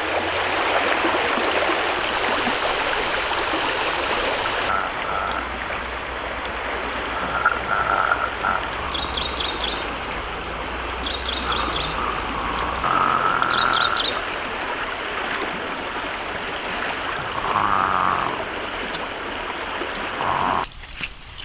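Rushing river water, with short animal calls repeated over it several times and a steady high-pitched drone. The water sound drops away near the end.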